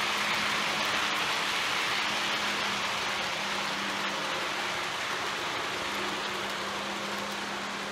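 Wagons of a model railway freight train rolling along the track: a steady hiss of small wheels on rail over a low steady hum, fading slowly as the train runs away.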